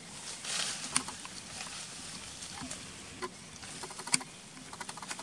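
Macaques moving and scuffling over dry leaf litter: a brief rustle of leaves and scattered sharp crackles and clicks, with a loud click about four seconds in.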